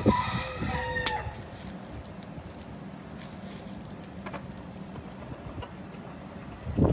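A chicken gives a short call over roughly the first second, then it goes quieter, with a few faint ticks.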